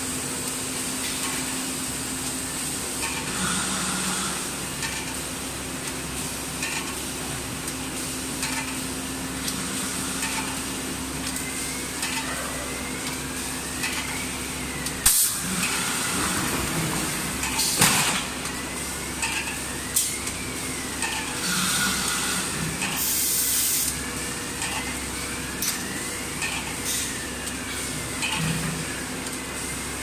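HIPS plastic sheet extrusion line running: a steady machine hum with a constant high whine, broken by short hisses, faint rising-and-falling tones and a few sharp clacks, the loudest about fifteen and eighteen seconds in. A longer hiss comes about twenty-three seconds in.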